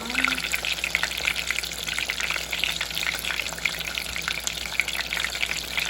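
Breadcrumb-coated chicken cutlets frying in hot oil: a steady sizzle full of small crackling pops.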